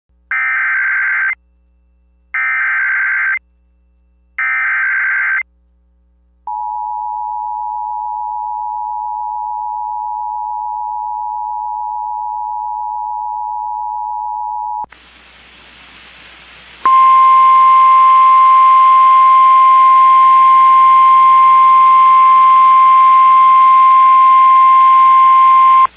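Emergency Alert System activation for a severe thunderstorm warning. Three short bursts of SAME header data come first, then the two-tone EAS attention signal for about eight seconds. Then radio hiss, with the NOAA Weather Radio 1050 Hz warning alarm tone held steady over it for about nine seconds.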